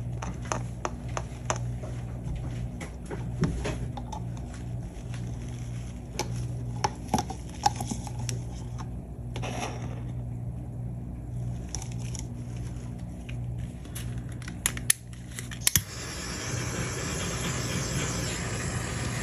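A wooden stir stick scraping and tapping against a plastic mixing cup as thick epoxy resin is scraped out into silicone putty molds, giving scattered light clicks. About 16 seconds in a steady hiss starts: a small handheld torch played over the freshly poured resin to pop surface bubbles.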